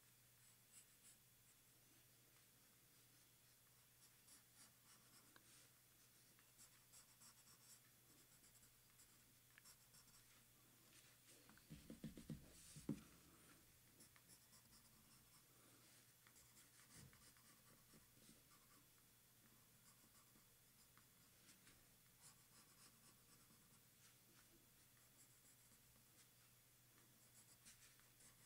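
Faint scratching of a 2B graphite pencil sketching on paper, in many short strokes. About twelve seconds in there are a few louder dull bumps.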